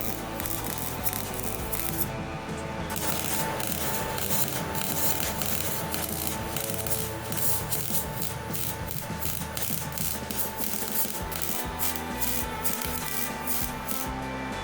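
Background music over a steady rasping, scraping metalwork noise.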